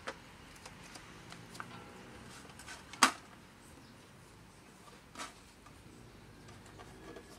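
Scattered small clicks and knocks of hands working among potted plants and scraps, with one sharp, loud click about three seconds in and a softer one about two seconds later.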